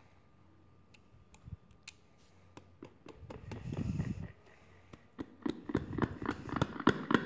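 Hands handling a WS-858 wireless karaoke microphone: scattered clicks and taps on its body and grille, a low rubbing rumble about three and a half seconds in, and a quicker run of clicks near the end.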